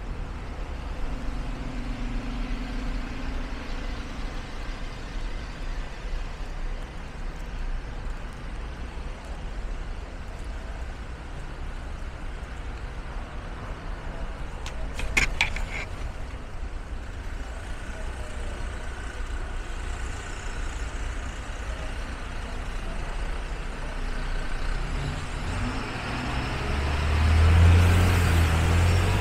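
City street traffic in the rain: a steady hiss of rain and wet road noise, with a brief sharp clatter about halfway. Near the end a vehicle passes close, its low engine rumble swelling to the loudest point.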